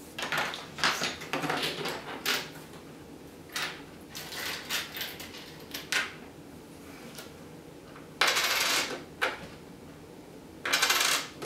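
Coins clinking and jingling as a hand rummages through a pile of US coins on a table, with two longer, louder rattling scrapes near the end.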